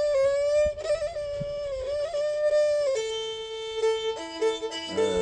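Thai two-string bowed fiddle (so) playing a sustained, ornamented melody in a kantruem mahori tune. About three seconds in it steps to a lower held note, and a second, lower line joins about four seconds in, giving a two-part harmony.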